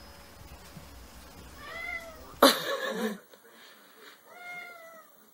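A domestic cat meowing: two drawn-out meows, each rising then falling in pitch, about two and a half seconds apart. A sudden loud burst of sound comes between them and is the loudest thing heard.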